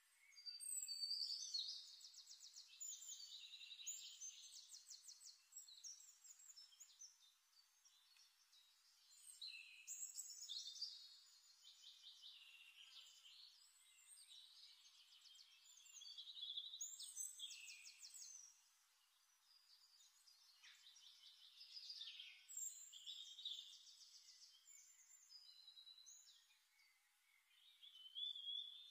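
Faint birdsong: phrases of rapid trills and chirps every few seconds, with short pauses between them.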